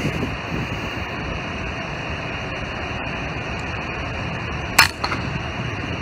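A .177 FX Dreamline PCP air rifle fires once near the end, a single sharp crack, followed about a quarter second later by a fainter knock. Steady background noise runs underneath.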